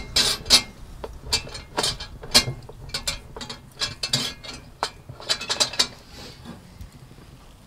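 Metal clinks and rattles as a Petromax cast-iron Dutch oven is lifted off a steel rack by its wire bail handle: many sharp clanks for about six seconds, then fewer and fainter ones near the end.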